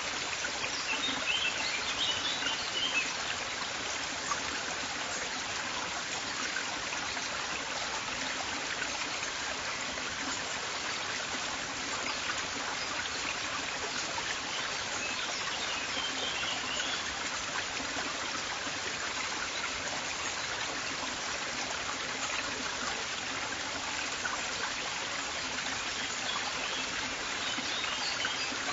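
River water flowing in a steady, even rush. Small birds chirp high above it in short spells, near the start, about halfway through and near the end.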